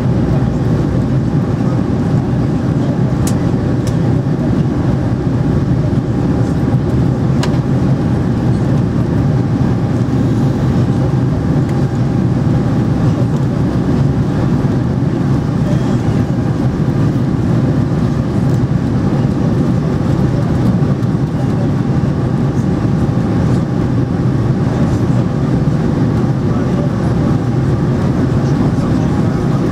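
Steady cabin noise inside an Airbus A300B4-600 in flight: the constant drone of the engines and rushing air, heaviest in the low range, with a faint steady hum above it and a few faint clicks.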